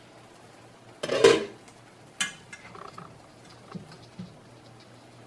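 Metal cookware clattering as a pan lid is fetched: one loud clatter about a second in, then a sharp clack and a few light taps.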